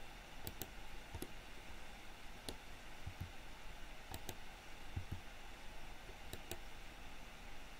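Faint computer mouse clicks and keyboard key presses, scattered and often in quick pairs, over a steady low hiss.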